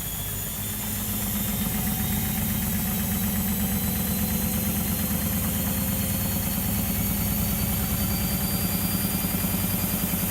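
Whirlpool washing machine running, its motor and drum speeding up: a steady, rhythmic low hum gets louder about a second in, and a faint motor whine rises slowly in pitch.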